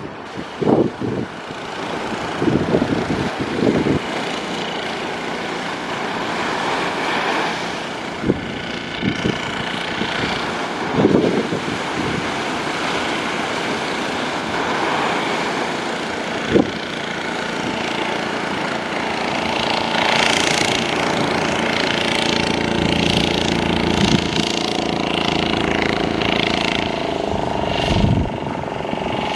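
Outboard motor of a small fishing boat running steadily under way, over a steady wash of wind and surf, with a few short thumps.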